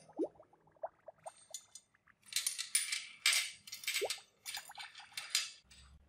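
Small metal parts and wire clinking and rattling against a glass dish of liquid, in several bursts, with a few small watery drips and plops before them.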